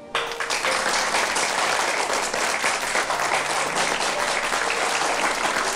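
A group of people applauding, many hands clapping in a steady dense patter that starts abruptly at the beginning.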